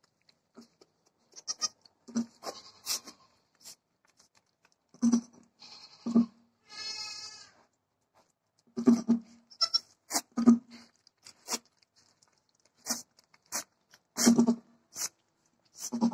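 Dwarf goat doe repeatedly making short low grunts while she licks her newborn kids, with wet licking clicks and rustling straw between the calls. About seven seconds in comes one brief, higher, wavering bleat.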